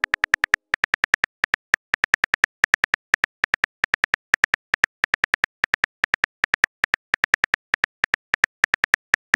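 Simulated phone keyboard clicks from a texting app, one short tick per letter typed, about six a second with brief pauses between words.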